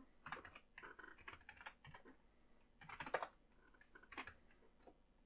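Faint keystrokes on a computer keyboard: a quick run of typing, then a single louder key stroke about three seconds in and another a second later.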